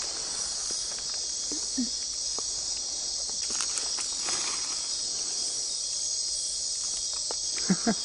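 Dense, steady chorus of nocturnal rainforest insects, many shrill high-pitched calls overlapping into one continuous wall of sound, with a few faint ticks and rustles underneath.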